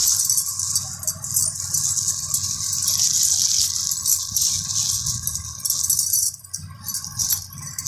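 Clear plastic bag crinkling and rustling as it is handled.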